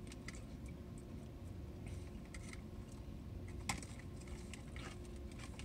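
People chewing food, giving scattered small mouth clicks with one sharper click a little past halfway, over a low steady hum.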